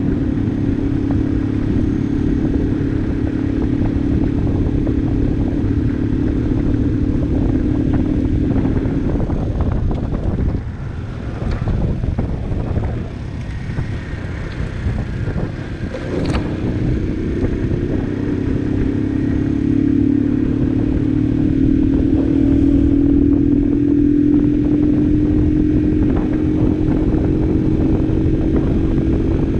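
Barton Volcano 50cc motorcycle engine under way, heard from the rider's seat with wind noise on the microphone. It runs steadily, eases off and goes quieter about ten seconds in, with a sharp click around sixteen seconds, then pulls again with its pitch slowly rising.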